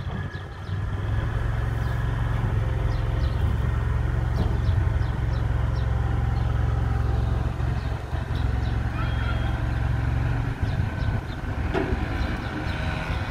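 Stryda 600S amphibious boat's hydraulic wheel-leg system running with a steady low drone as the legs extend and lift the hull off the ground, then cutting off about ten seconds in.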